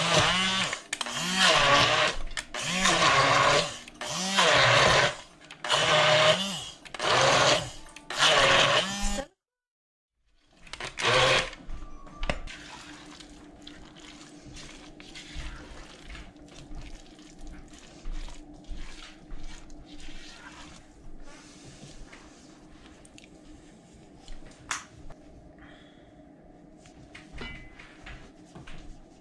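Stainless immersion blender run in short pulses in a thick lentil mixture, about seven bursts a second or so apart, the motor's whine rising and falling with each one, then a single last burst. After that, quieter scraping and tapping of a silicone spatula stirring the mixture in the enamelled pot.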